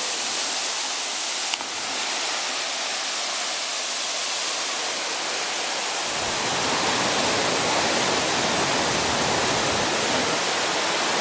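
Waterfall rushing: a steady hiss of falling water that grows fuller and deeper about six seconds in, with a single faint click about a second and a half in.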